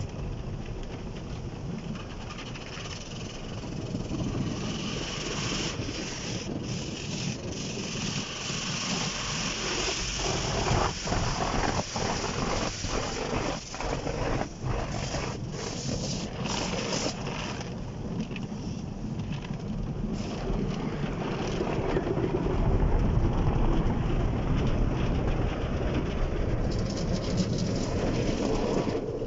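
Automatic car wash heard from inside the car's cabin: water and foam spraying and splashing over the windscreen, with a run of sharp hits in the middle. From about two-thirds through it grows louder and deeper as the cloth washing strips sweep across the car.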